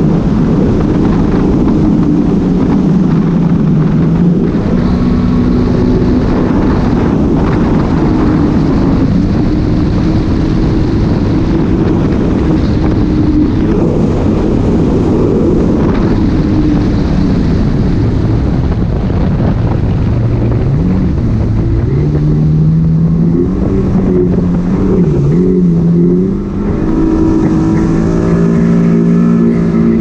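Yamaha WaveRunner jet ski's engine running under way, its pitch rising and falling with the throttle and climbing in the last few seconds as the craft speeds up, over a steady rush of water and wind.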